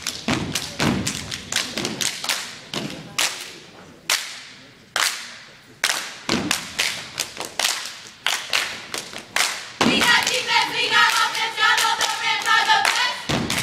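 A dance team's stomp-and-clap routine: rhythmic foot stomps and hand claps on a hardwood gym floor, with a couple of brief pauses. About ten seconds in, several voices start chanting together in unison over the beat.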